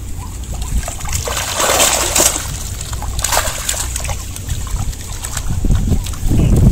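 A mesh keep net full of fish being lifted out of the water: splashing and water running off through the net, loudest in a burst between about one and two and a half seconds in and again briefly just after three seconds.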